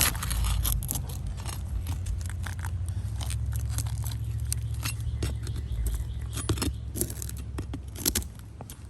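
Flat pry bar worked under sealed asphalt shingles, giving a run of scraping strokes and sharp crackling clicks. The bar is breaking the tar seal strip and scooping up the fiberglass matting of the shingle above: the shingles are so firmly bonded that they tear instead of releasing. A steady low rumble runs underneath.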